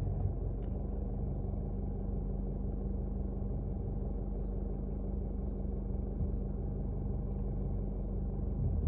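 2020 Isuzu's engine idling steadily, heard inside the cab as a low hum and rumble. A couple of faint clicks come as the steering wheel is turned.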